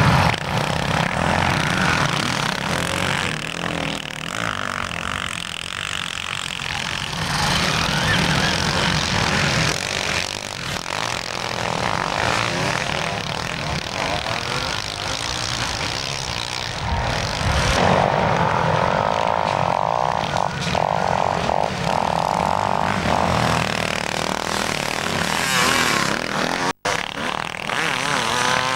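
Several motocross motorcycle engines buzzing and revving as bikes race around a sand track, rising and falling as they pass. The sound cuts out for an instant near the end.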